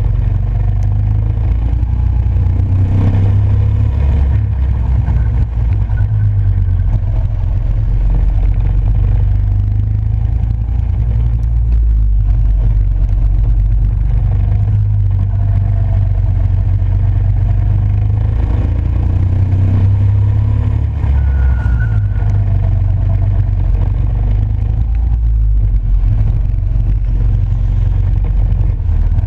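Go-kart engine running at speed, with a loud steady low rumble and a pitch that rises and falls as the kart accelerates and slows through the corners.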